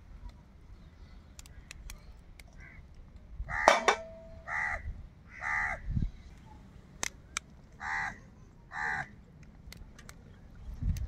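A crow cawing, about five short harsh calls spaced roughly a second apart in the second half, with a few faint sharp clicks underneath.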